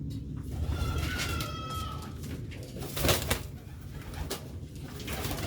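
Domestic pigeons cooing in their loft, males driving their hens. A thin falling tone sounds about a second in, and a sharp knock comes about three seconds in.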